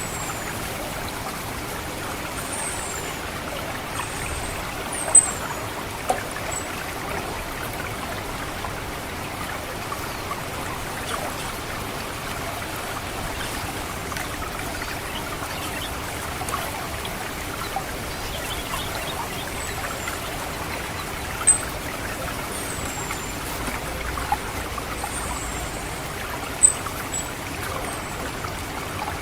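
Water trickling in a rice paddy, a steady trickle, with an orange-headed thrush's thin, very high 'cit' calls: short notes that slide downward, clustered in the first few seconds and again in the last third.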